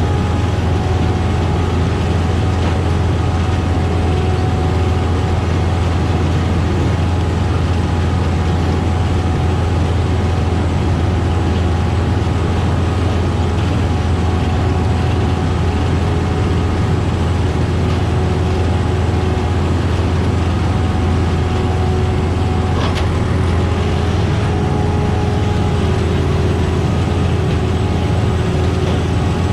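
Heavy diesel farm machinery running steadily: a constant deep engine drone with a steady whine above it, which does not change in pitch or level. There is one brief faint tick a little before the end.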